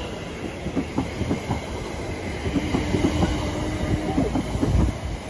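London Overground Class 710 electric multiple unit running past along the platform: a low rumble with many clicks of the wheels over the rail joints. A steady tone sounds for about a second and a half in the middle.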